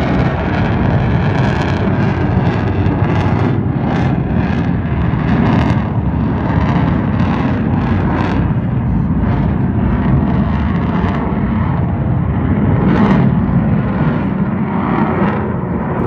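An F-35 Lightning II fighter's single Pratt & Whitney F135 afterburning turbofan, loud and steady, heaviest in the low end, with no clear rise or fall.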